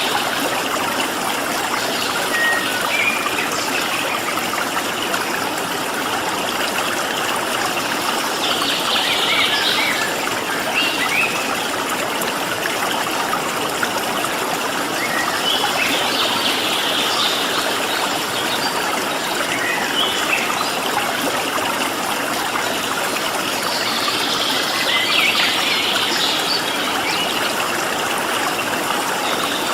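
Stream water running steadily, with wild birds singing over it in short high bursts of song about every seven or eight seconds, plus scattered single chirps.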